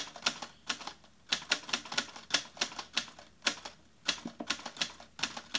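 Typewriter keystroke sound effect: a run of sharp clacks a few per second, broken by short pauses, matching text appearing letter by letter.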